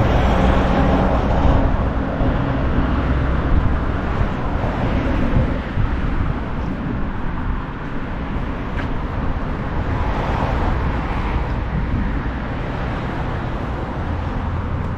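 Outdoor road traffic noise with a vehicle engine's low hum, loudest in the first couple of seconds and then easing off a little.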